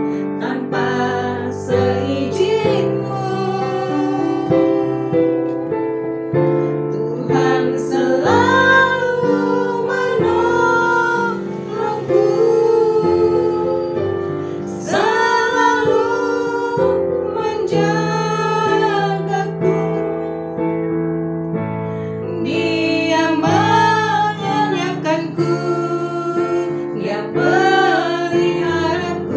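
Women singing a song together, accompanied by a piano played in sustained chords.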